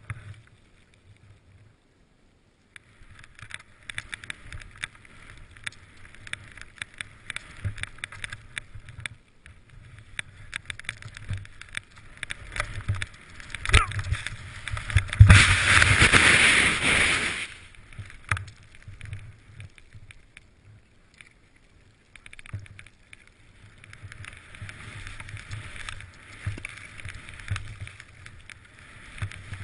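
Skis swishing and hissing through deep powder snow, heard through a body-worn camera's microphone with low wind rumble. A louder rushing hiss lasts about two seconds around the middle, and the sound drops away briefly twice.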